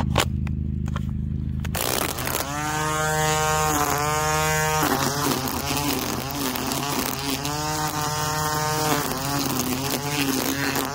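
Ryobi 18-volt cordless string trimmer's electric motor starting about two seconds in and spinning up to a steady whine. Its speed rises and falls several times as the trigger is eased and squeezed, and it winds down at the end. This is a test run on a fresh battery and newly replaced line, and the trimmer is working.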